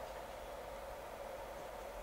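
Faint steady hiss with a low hum: quiet room tone, no distinct sound events.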